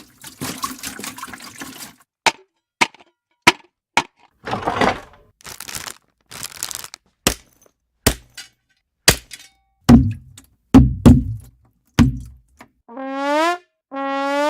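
A quick run of separate foley sound effects: sharp clicks and knocks, short noisy rustles, several heavy low thumps, and near the end two short honking tones that rise in pitch.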